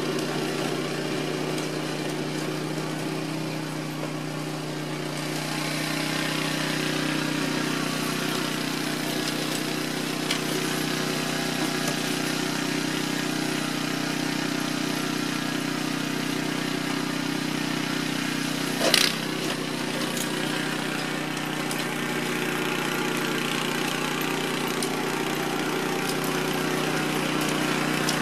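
AL-KO Snowline 760 TE snowblower's 13 HP petrol engine running steadily as the machine clears and throws snow, with one sharp knock about two-thirds of the way through.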